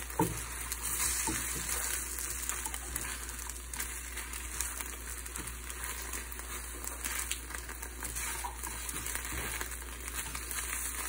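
Fried tortilla pieces and beaten egg sizzling in a frying pan as a steady hiss while they are stirred with tongs, with a few light clicks of the tongs against the pan. The egg is cooking through.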